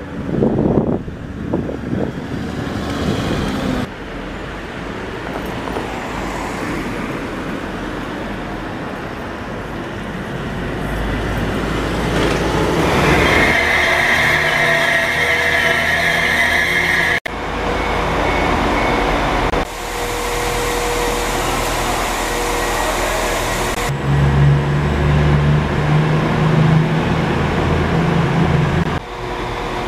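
Public transport vehicles (buses, trains and trams) running and passing, in a string of short clips that cut from one to the next every few seconds. Near the middle a steady high whine lasts about four seconds, and near the end a low steady drone lasts about five seconds.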